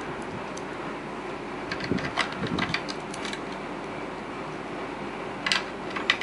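Small hard-plastic clicks and taps as an action figure and its rubber-tubing seat belt are fitted into a toy vehicle's seat. They come in a cluster a couple of seconds in and again near the end, over a steady background hiss.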